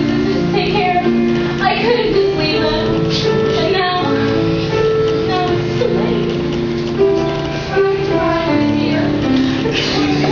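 A child's voice singing a slow, sad musical-theatre song over instrumental accompaniment with long held notes.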